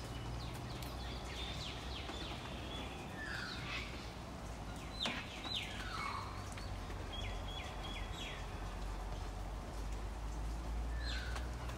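Birds chirping in the background: short repeated high notes, with a couple of falling calls about halfway through, over a low steady hum.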